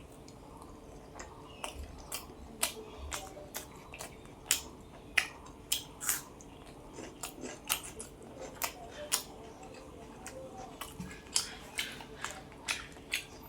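Close-miked chewing of mutton curry and potato, with wet mouth clicks and lip smacks coming irregularly, one or two a second.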